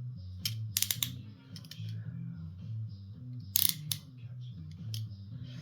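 Sharp metallic clicks and rattles of steel handcuffs being worked with a thin shim: a cluster of clicks about a second in and a louder pair past the middle. A low background bass line runs underneath.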